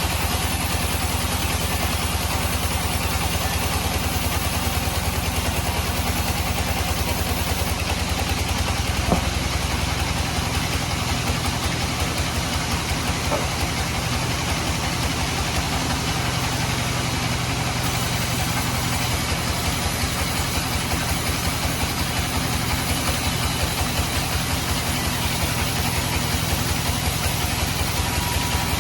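Band sawmill running steadily with an even, low, rhythmic thrum, sawing teak. A brighter hiss joins from about eight to eighteen seconds in, and there is a single sharp knock about nine seconds in.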